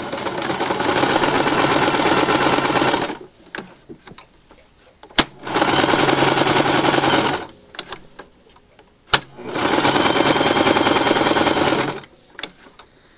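Singer electric sewing machine running a zigzag stitch in three bursts of two to three seconds each, stopping between them, with a sharp click just before the second and third bursts.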